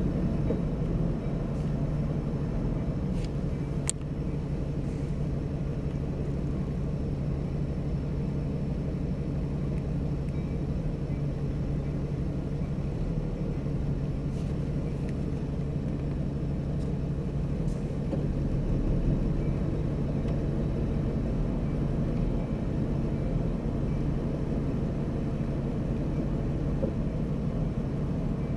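Steady low rumble of an idling vehicle engine, with a constant low hum.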